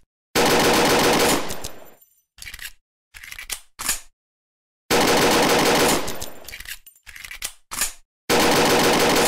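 Machine-gun fire sound effect in bursts: three long bursts of about a second and a half each, each trailing off, with shorter bursts between them.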